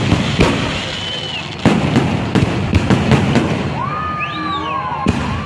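Aerial fireworks display: shells bursting overhead with sharp bangs at irregular intervals, several close together in the middle, over a continuous crackling rumble.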